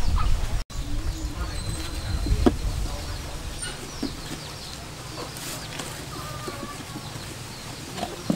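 Outdoor rural ambience with birds chirping in short, scattered calls, over a low rumble, with one soft knock about two and a half seconds in.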